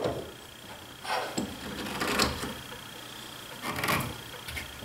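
Wooden hand screw clamps being handled and snugged onto wooden moulding: three soft rubbing, knocking handling sounds, over a faint steady high-pitched whine.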